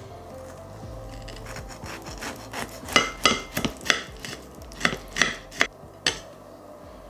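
Knife and fork cutting through a fried cabbage roll's crisp breadcrumb crust. A light crackling grows into a run of about eight sharp crunches, which stop about six seconds in.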